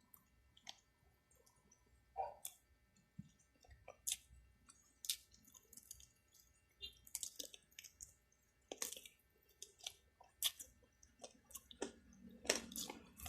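Faint close-up chewing and lip smacking while eating a meal, heard as scattered short, wet clicks at irregular intervals.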